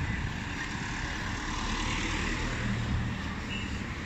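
Motor vehicle passing on the street, its engine and tyre noise swelling to a peak about two to three seconds in, over steady city street noise.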